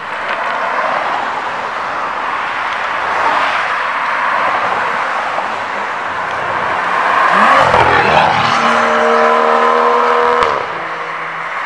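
BMW M2 (F87) turbocharged straight-six through a Fi Exhaust valved cat-back with quad tips, accelerating hard past on the road with a loud exhaust. About seven and a half seconds in the revs climb quickly. The exhaust then holds a steady pitched drone that cuts off suddenly near the end.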